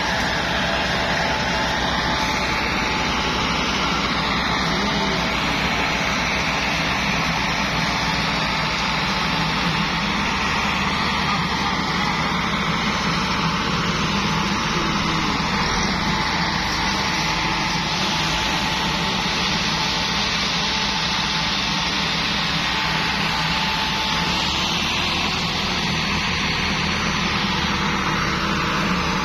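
Massey Ferguson 385 tractors' diesel engines running steadily under heavy load, straining to tow a trolley of sugarcane that is stuck fast.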